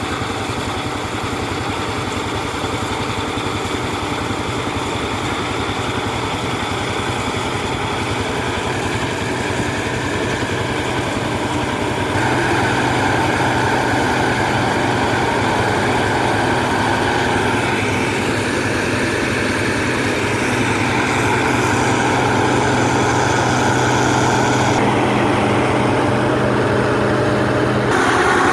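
Engine of John Deere cotton-harvesting machinery running steadily, with a steady low drone and a whining hiss above it; it grows louder about twelve seconds in.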